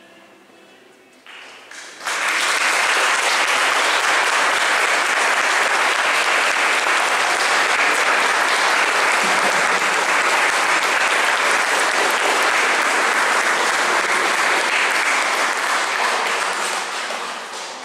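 A congregation applauding: dense, steady clapping that starts abruptly about two seconds in and dies away near the end.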